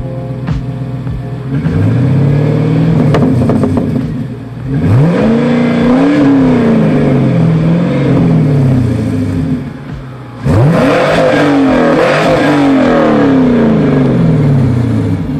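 Chevrolet Camaro's GM LS-series V8 idling, then revved again and again, its pitch climbing and falling back in steps. A second run of revs starts about ten seconds in and dies away near the end.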